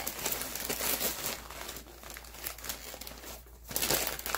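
Paper packaging crinkling and rustling in irregular bursts as a shipping box of clothes is unpacked.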